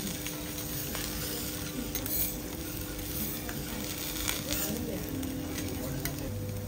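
Vegetable slices sizzling steadily on a hot steel teppanyaki griddle, with a few light clicks of metal spatulas against the plate.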